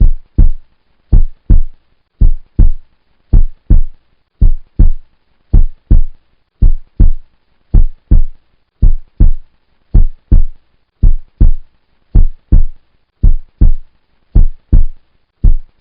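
Heartbeat: a steady lub-dub rhythm of paired low thumps, about one pair a second.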